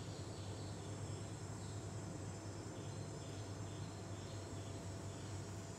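Faint ambient insects chirping in short repeated pulses, over a steady low hum.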